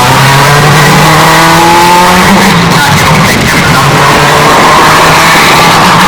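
Porsche 911 RSR race car engine accelerating hard at high revs, its pitch climbing for about two seconds and then dropping back at a gearshift. The sound is loud and heavily distorted by bass boosting.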